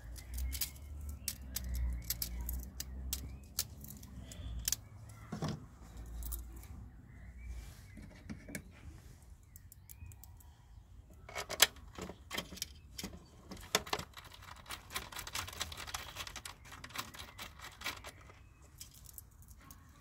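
Small metal screws clicking and jingling as they are pulled from their plastic holder and handled, ready to fix a replacement throttle body. A low rumble runs under the clicks for the first several seconds.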